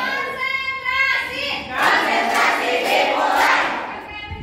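A group of young voices singing together in held notes, with hand claps joining in now and then as they clap along in pairs.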